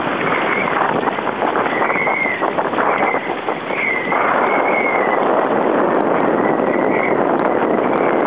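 Wind and water noise aboard a small sailing outrigger canoe under way in a strong, gusty breeze: a steady rush of wind and water, with knocking slaps against the hull in the first few seconds. The rush grows fuller about four seconds in, and a wavering high whistle comes and goes.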